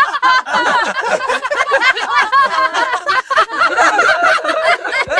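AI-generated crowd sound effect: many voices talking and laughing over one another, with no single voice standing out.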